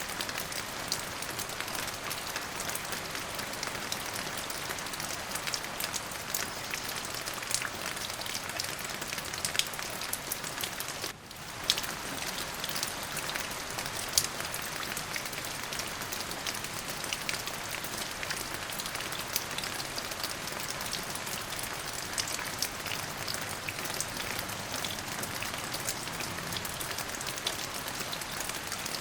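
Steady rain falling, with many individual drops ticking sharply through the hiss. The sound briefly dips out for a split second about eleven seconds in.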